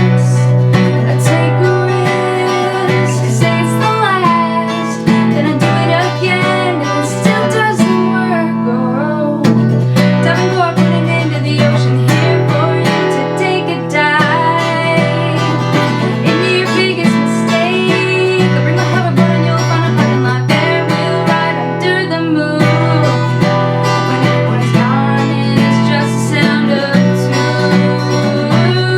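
Acoustic guitar strummed steadily, with a woman singing over it in an original acoustic song.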